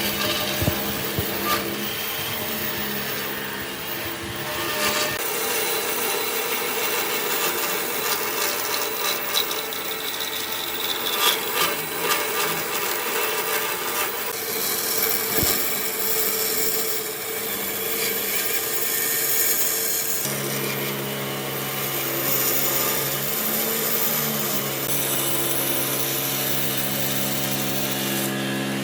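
Electric power tools working wood: a motor runs steadily while the tool rasps and rubs against the wood, with scattered knocks. The motor's pitch shifts about five seconds in and again near twenty seconds.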